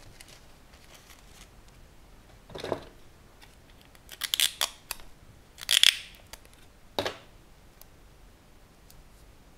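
Scissors snipping through paper in a few short, separate cuts, the loudest about six seconds in.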